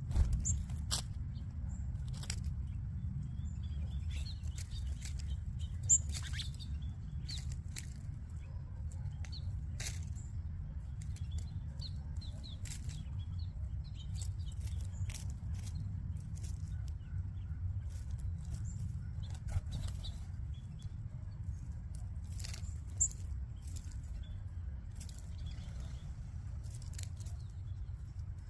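Flock of small seed-eating birds feeding: many short, sharp clicks and brief chirps with occasional wing flaps, over a steady low rumble.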